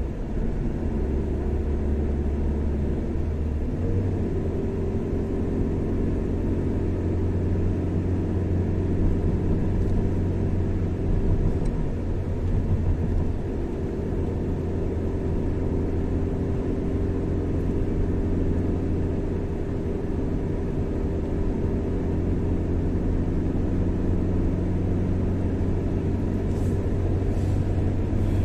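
Car driving at a steady speed: a continuous low drone of engine and road noise.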